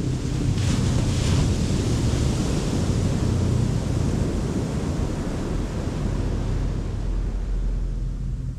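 Wind buffeting the microphone over the wash of ocean surf: a loud, steady rumble with a few stronger gusts about a second in, easing slightly near the end.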